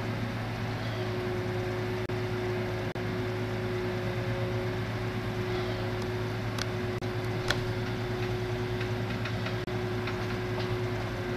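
A tree-felling crane's engine running steadily with a constant hum while the boom lowers a cut section of poplar. A few sharp clicks or knocks come about six to seven and a half seconds in.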